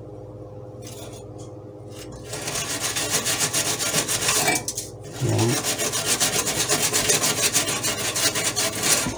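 A nearly dry metal mesh scouring pad scrubbed rapidly back and forth against the metal fan-cover wall inside an Emeril Lagasse Air Fryer 360, rasping as it scours off hardened grease splatter. The scrubbing starts about two seconds in, breaks off briefly near the middle, then carries on until near the end.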